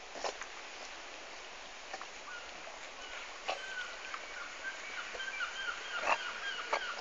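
A dog whining in short, repeated high cries, about two a second, starting a couple of seconds in and growing louder, over a steady background hiss with a few sharp clicks.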